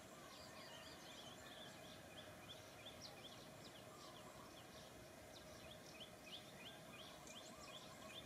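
Faint outdoor background with small birds chirping over and over, short high chirps that drop in pitch, about three a second.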